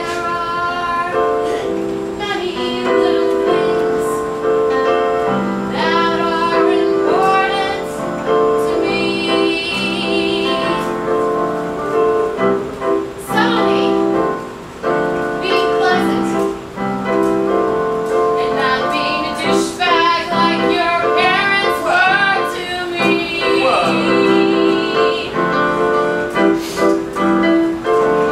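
A woman singing a song live over sustained keyboard chords, her held notes wavering with vibrato.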